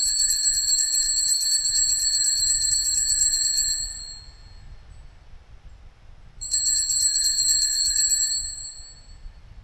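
Altar bells shaken in two rapid rings, the first about four seconds long and the second, after a pause, about two seconds: the signal rung at the elevation of the consecrated host at Mass.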